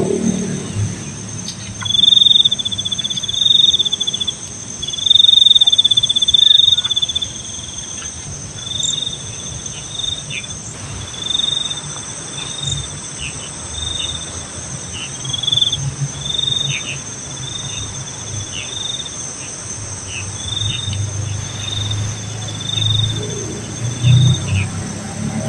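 Insects chirping: repeated trills at one pitch, the first few long and the rest shorter, over a steady high-pitched insect drone.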